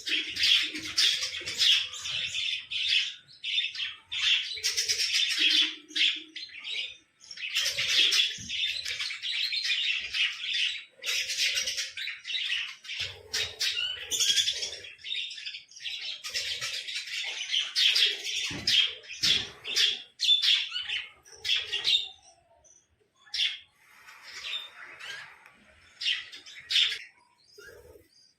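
Birds chattering in a dense, rapid stream of high-pitched chirps, thinning to scattered separate calls for the last several seconds.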